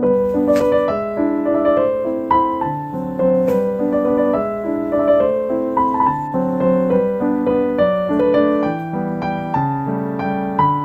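Background piano music: a melody of single notes moving over lower held chords.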